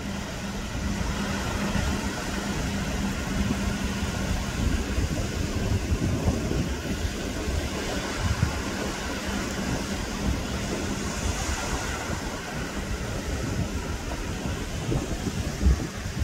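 Small waves washing onto a sandy beach as a steady hiss, with gusty wind rumbling on the microphone. A faint low hum fades a few seconds in.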